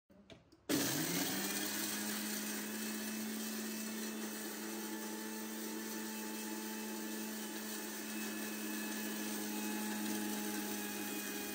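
Electric mixer grinder (mixie) grinding dry-roasted red chillies and spices into powder. Its motor starts a little under a second in, rises quickly in pitch, then runs at a steady whir.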